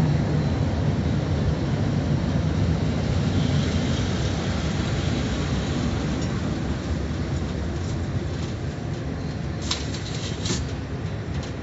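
Automatic tunnel car wash machinery running, heard from inside the car's cabin as a steady rumbling wash of noise that slowly eases off, with a couple of sharp clicks near the end.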